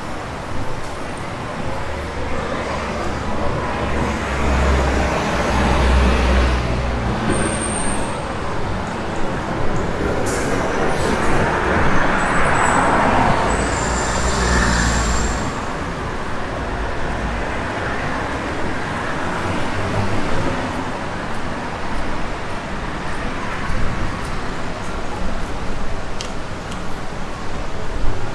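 Street traffic: motor vehicles running and passing, with a deep engine rumble from about two seconds in to about eight, and one vehicle passing close about halfway through.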